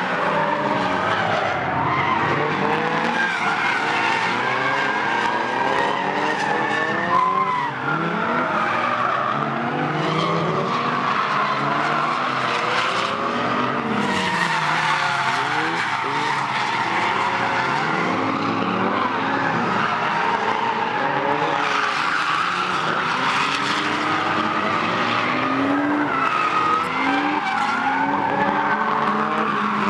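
Drift car engine revving up and down at high load while the tyres squeal, the car sliding sideways through corners.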